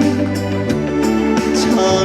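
Trot song accompaniment playing between sung lines, with held chords at a steady level.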